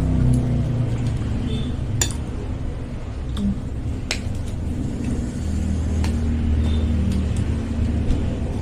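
A spoon clinking a few times against a bowl of bakso soup during eating, with short sharp clicks and brief ringing, over a steady low rumble.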